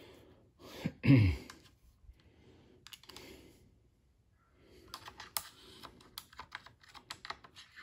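Light, irregular clicks and taps from about five seconds in, like typing, as a borescope's camera cable is handled and fed down a spark plug hole of the engine.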